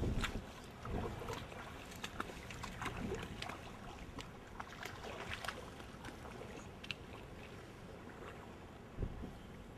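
Wading steps splashing and sloshing through shallow floodwater, in irregular small splashes, with louder sloshes at the start and again about nine seconds in.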